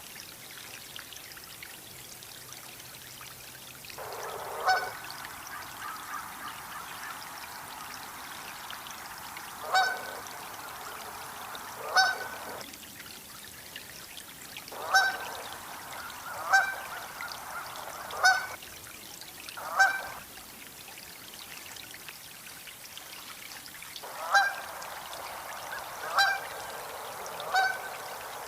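Canada goose honking: about ten single, loud honks at uneven gaps of one to five seconds, starting about four seconds in.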